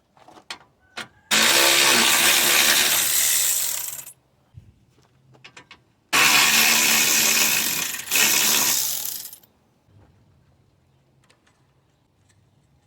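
A power tool running twice, for about three seconds each time, spinning out 10 mm bolts, with a few short metallic clicks before and between the runs.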